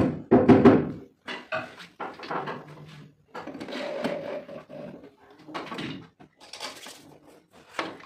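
Knocks and handling of a laminated board drawer box in the first second, then an electric drill running briefly, about three and a half seconds in, as it bores a hole in the drawer's edge for a hidden lock.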